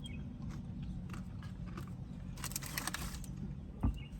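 Mouth-close eating sounds: small clicks of chewing, a brief crisp crunching about two and a half seconds in, and a short thump near the end, over a steady low hum.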